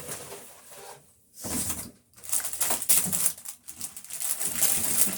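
Plastic packaging and bagged items rustling and crinkling as they are shoved aside and handled, in several irregular spells with brief pauses between them.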